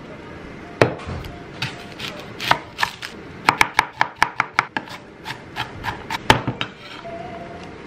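Chef's knife chopping a red onion on a wooden cutting board: a few separate knocks, then a quick even run of chops about six a second in the middle, and one hard knock near the end.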